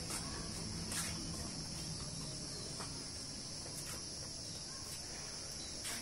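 Outdoor insect chorus, such as crickets, making a steady high-pitched drone, with a few faint clicks.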